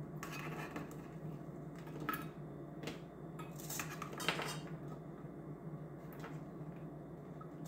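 Fresh rose hips pushed by hand from a stainless steel mesh strainer into a metal measuring cup: scattered light rattles and clinks of the hips and metal, busiest about four seconds in.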